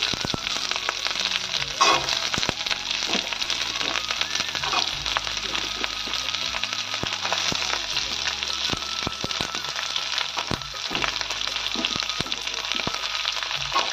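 Chopped onion, green chilli and diced capsicum sizzling steadily in hot oil in a kadai, with scattered clicks and crackles of spitting oil and a metal spatula against the pan.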